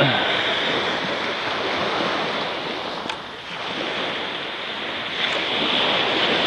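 Small waves breaking and washing up a sandy beach, easing a little about halfway through and building again near the end.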